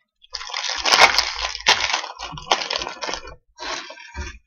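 Small plastic Lego pieces clattering and rattling with many quick clicks, as when rummaging through loose bricks. The clatter is densest for the first three seconds, then breaks into a few shorter bursts.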